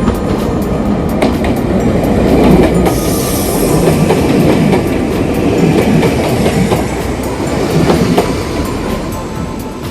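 Nagano Electric Railway electric train running past at close range, its wheels clacking over the rail joints. It is loudest about two to three seconds in and eases off near the end.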